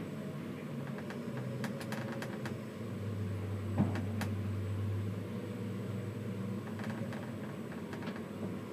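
Steady mechanical hum heard inside a tower crane's cab, with a low drone that swells for about two seconds in the middle and a few light clicks.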